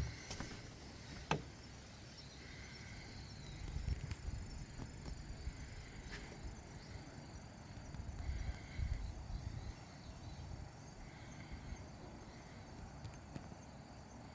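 Outdoor ambience with a faint steady high hiss, and a short call, likely from an animal, repeating every two to three seconds. There are a few low thumps and a sharp click about a second in.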